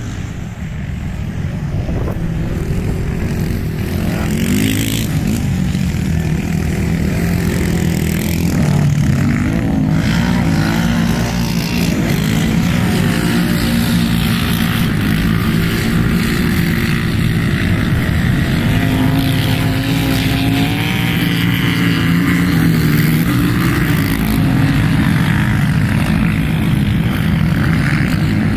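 Quad bike (ATV) engines running hard at racing speed, their pitch rising and falling as they rev up and back off, getting a little louder over the first few seconds.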